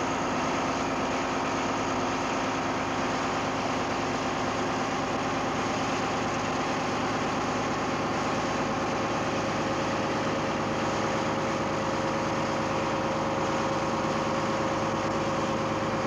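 Boat engine running steadily under way, an even drone made of several steady tones that holds the same level throughout.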